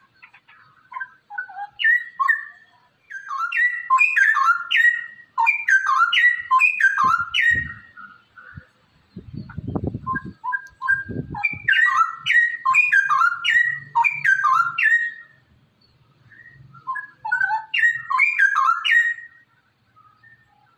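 Straw-headed bulbul (cucak rowo) singing loud, rapid bubbling phrases in three long bursts. A brief low rumble sits under a pause in the song near the middle.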